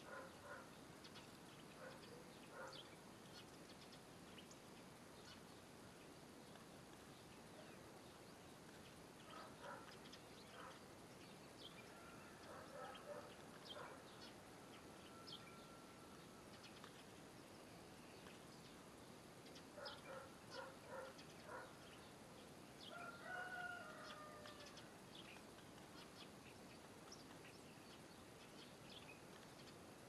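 Faint bird calls over a low hiss: a few bunches of short, quick repeated lower notes, one with a short sliding call, and scattered thin high chirps.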